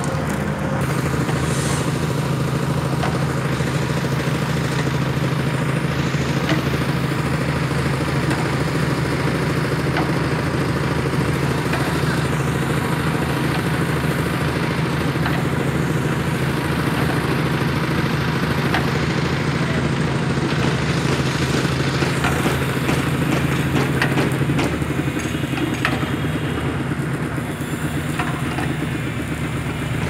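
Diesel power pack of a hydraulic static pile driver running steadily under load, driving the hydraulic jacks that press the pile into the soil. Its low hum changes about 25 seconds in.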